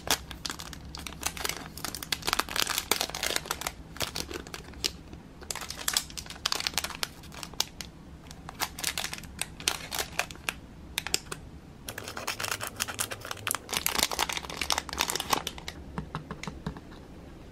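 Thin clear plastic bag crinkling in handled bursts as fingers work a small miniature out of it, with short pauses between bursts. It goes quiet near the end.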